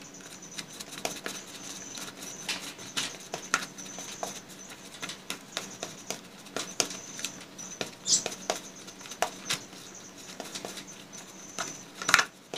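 Metal spoon tapping and scraping against a plastic bowl while a crumbly bait mix is mashed, in irregular light clicks with a louder knock near the end.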